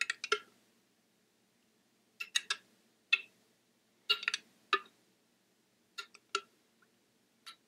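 A spoon clinking against a container in short, ringing clinks, about eight in irregular groups, as thickened peaches are spooned onto batter in a pan.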